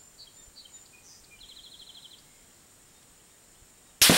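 Faint bird chirps with one short rapid trill, then a lull. About four seconds in comes a sudden, very loud blast as a 10-pound Tannerite exploding-target charge detonates, and the blast dies away slowly.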